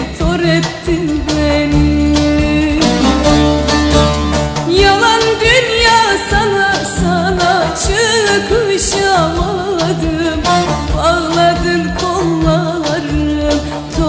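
Background music: a song with a solo voice singing a wavering melody over a steady bass and beat. The voice comes in more strongly about a third of the way in.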